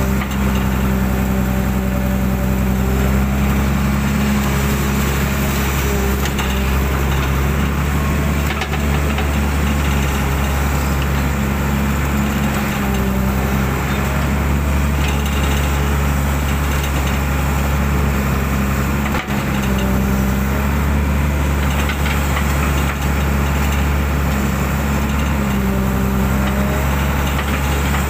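Hydraulic excavator's diesel engine running steadily, heard from the operator's cab, its low tone rising and easing a little as the boom and bucket dig and lift wet mud.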